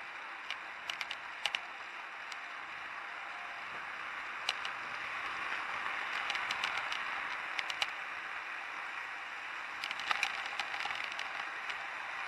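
Steady hiss of street traffic and riding noise picked up by a camera on a moving bicycle's handlebars, a little louder from about four seconds in, with scattered clusters of small sharp clicks.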